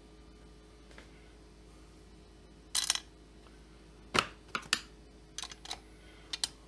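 Scattered light clicks and taps of small screws and a tool being handled on a chainsaw crankcase. There is a short rattle just under three seconds in, then a run of single sharp taps between about four and six and a half seconds.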